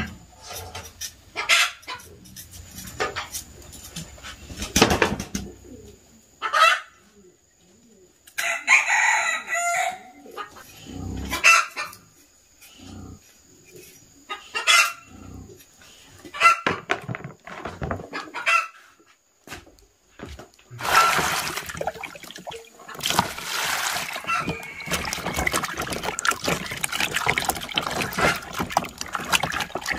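Chickens clucking, with a rooster crowing once about nine seconds in, over short scraping strokes of a cleaver peeling a sweet potato. After about twenty seconds, water sloshing and splashing as hands wash peeled sweet potato pieces in a plastic basin.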